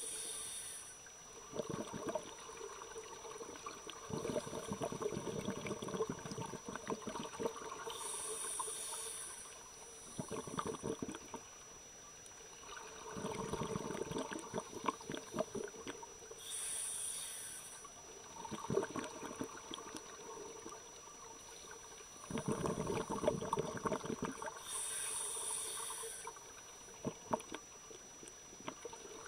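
Scuba breathing heard underwater through open-circuit regulators: four short hisses of inhaled air from the demand valve, about eight seconds apart, each followed by a few seconds of crackling, gurgling exhaust bubbles.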